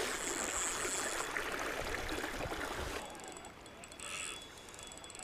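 Steady rushing of river water, dropping noticeably about three seconds in.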